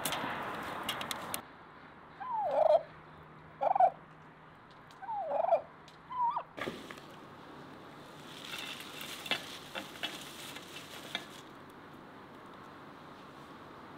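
Domestic fowl calling: four short, loud calls over about four seconds, each a quick swoop in pitch. A rushing noise cuts off abruptly just before them, and a few light clicks follow later.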